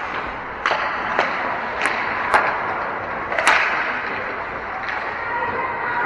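Ice hockey play: about five sharp clacks of sticks and puck in the first three and a half seconds, over a steady hiss of skates and rink noise.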